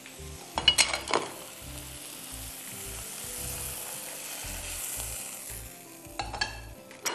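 Oil sizzling in a hot frying pan on a gas burner, with sharp spatula knocks and scrapes against the pan about a second in and again near the end, as sautéed spinach is scraped out onto a plate.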